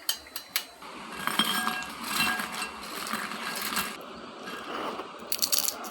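Light clinks and clicks of kitchen utensils against cookware, over a steady hiss that swells in the middle.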